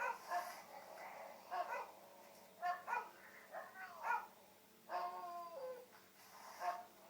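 Dogs barking and yipping in a series of short calls, with one longer whining call about five seconds in, played back through a device's speaker from a video of dog noises.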